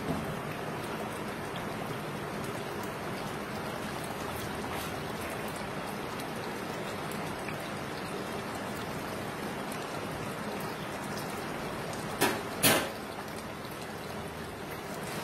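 Chicken korma gravy simmering in an open pressure cooker, bubbling steadily. About twelve seconds in come two short, sharp sounds in quick succession, louder than the bubbling.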